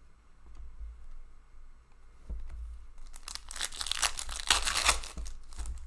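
Foil trading-card pack wrapper being torn open and crinkled. The crackling starts about three seconds in and is loudest near the end.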